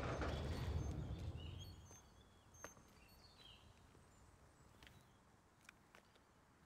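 Quiet outdoor ambience. A low rumble fades away over the first two seconds, leaving faint bird chirps and a few soft clicks.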